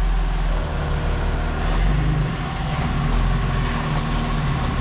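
Four-wheel-drive off-road truck's engine running, its revs shifting a little as it works over rough ground.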